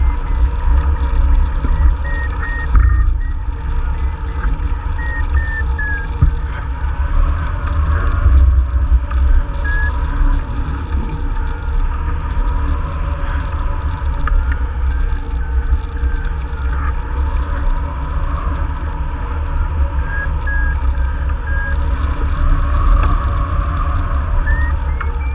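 Wind rushing over the microphone of a hang glider in flight, a heavy, steady rumble. Through it come short runs of electronic beeps from a flight variometer, which beeps when the glider is in lift; the beeps rise in pitch near the end.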